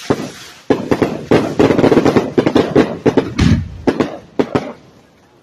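Fireworks bursting overhead: one bang, then a dense, rapid string of sharp bangs and crackles that thins out and dies away near the end.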